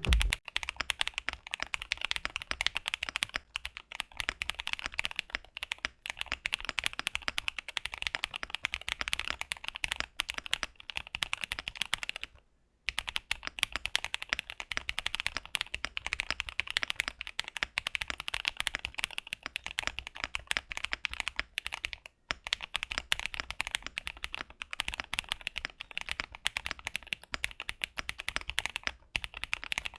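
Finalkey V65 R2 aluminum custom mechanical keyboard being typed on quickly and continuously, with a short pause about twelve seconds in. The case has a force break mod all around and a polyfill, which the reviewer says removes the case's pinginess and hollowness while keeping the bounce.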